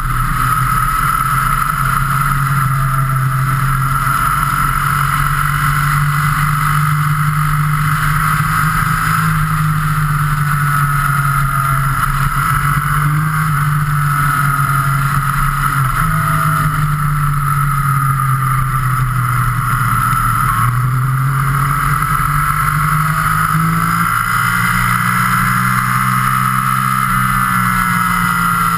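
Motorcycle engine running at road speed with steady wind rush on the microphone; the engine note sinks and rises slowly through the bends and steps up sharply about 24 seconds in.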